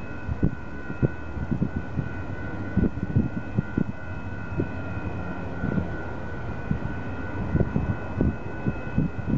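Wind buffeting the microphone in irregular low thumps and rumbles, over a steady high-pitched whine of several tones.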